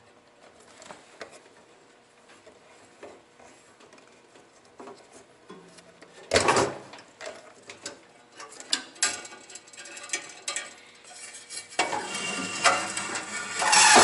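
Small metal clicks and clatter from hands working on a gas furnace's burner assembly and its sheet-metal parts, with one louder knock about six seconds in. A louder, continuous sound comes in near the end.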